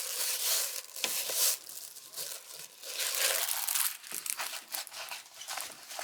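Plastic packaging of a diamond painting kit crinkling and rustling as it is handled and unwrapped, in irregular bursts.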